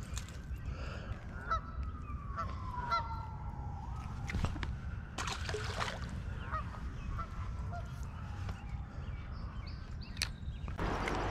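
Birds calling in a series of short, pitched honk-like calls at uneven intervals, with a few sharp clicks and a brief rustle in the middle.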